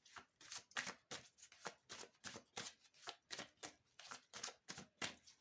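A deck of tarot cards being shuffled by hand: a quick, even run of soft card clicks, about five a second, faint.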